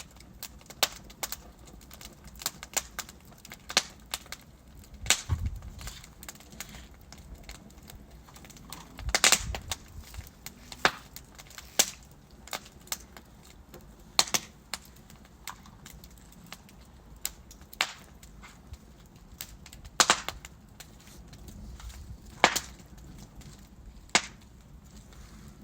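Wood fire of burning logs crackling: irregular sharp pops and snaps over a low steady hiss, with a few louder pops and a short burst of crackles about nine seconds in.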